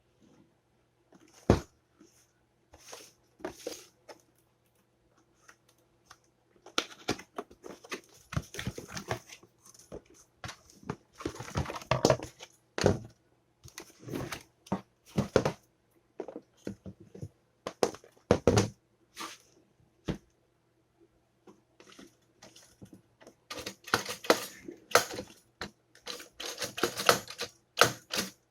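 Irregular clicks, taps and rattles of a toaster being handled and worked on, its plastic and metal parts knocking, thickest in two stretches, with one sharp click just after the start.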